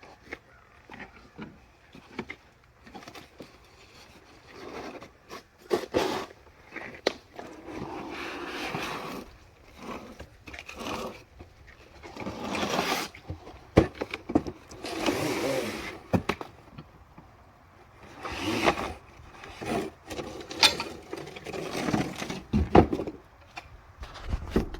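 A stapled cardboard box being ripped open by hand. Irregular tearing and scraping noises come in bursts, with sharp clicks and knocks in between.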